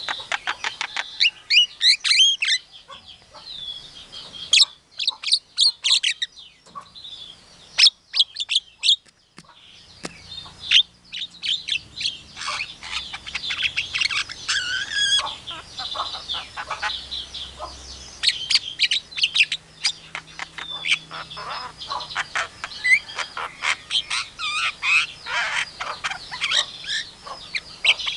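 Javan myna singing a long, varied run of quick chirps, whistles and rapid note strings, with a short pause about nine seconds in.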